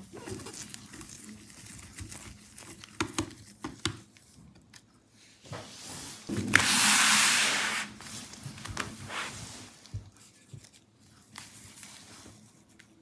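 Small clicks and taps of a screwdriver and tools on a laptop's internals, then a loud tearing sound about a second long, around six and a half seconds in, as the battery is pried up from the chassis with a wooden stick.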